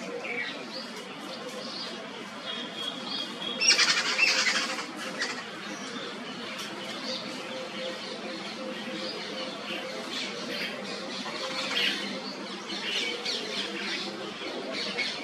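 Birds calling in short chirps and squawks over wind noise, with a loud rushing burst about four seconds in and a faint steady hum underneath.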